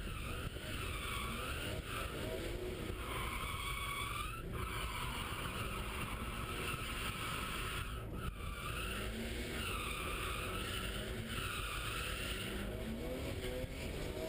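BMW E36 M3 drifting, heard from inside the cabin: the straight-six engine running hard with its revs climbing again and again, and the tyres squealing in repeated long slides, each about a second.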